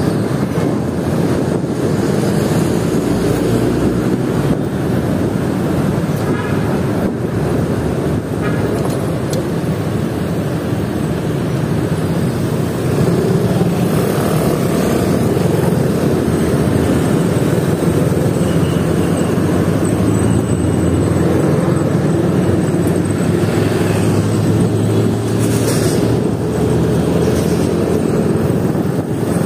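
A small motorcycle's engine running steadily while riding through city traffic, mixed with the noise of nearby cars, motorcycles and a jeepney. It gets a little louder about halfway through.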